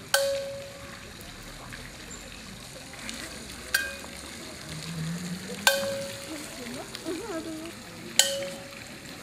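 Metal percussion struck four times at uneven intervals, each strike ringing out briefly with a clear tone, over a steady hiss of water.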